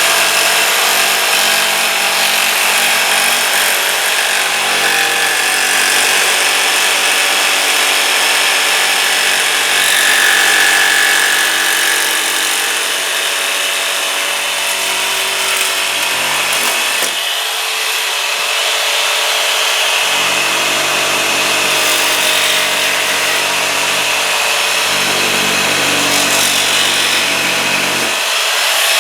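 Handheld jigsaw with a short, fine blade running continuously as it cuts plexiglass backed by 1/4-inch plywood. The motor's tone shifts a few times around the middle of the cut.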